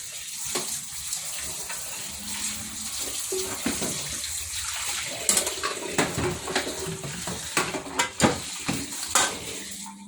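Palm fruit pulp frying in boiling oil, a steady sizzling hiss, with several sharp knocks against the pan in the second half. The oil is still foaming, a batch far from the finishing stage when the residue chars and the foam dies down.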